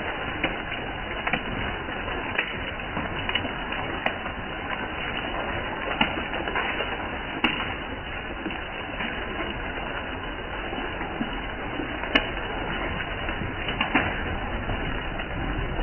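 Steady rain falling, with irregular louder drops tapping close by.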